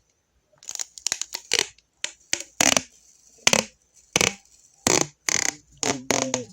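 Adhesive tape being pulled off the roll in a series of short rips, about ten quick strips with brief pauses between them.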